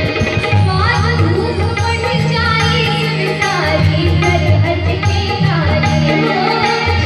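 A woman singing live through a PA in an Indian folk-devotional style, her melody gliding up and down, over instrumental accompaniment and a steady percussion beat.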